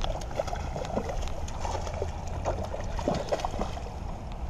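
Hooked trout splashing at the water's surface as it is played towards the net, in a run of short, irregular splashes, with wind rumbling on the microphone.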